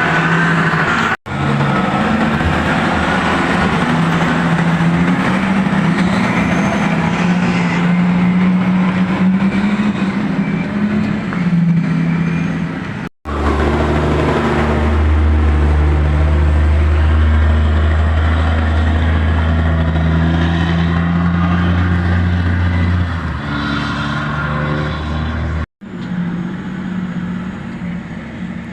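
Large diesel engines of heavy mining machinery running steadily, in short clips joined by three abrupt cuts. A deep low drone comes in at the second cut and holds for about ten seconds.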